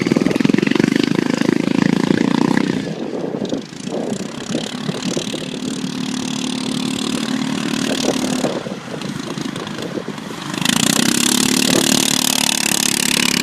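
Racing lawn mower engines running: loud at first, easing off about three seconds in to a steady hum, then growing loud again near eleven seconds in.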